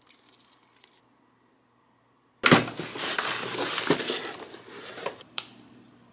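Keys and metal key rings clinking briefly as keychains are clipped on. After a short silence comes the loudest part: a cardboard mailer box is opened, with a sudden crackle of cardboard and paper rustling for about three seconds that dies away near the end.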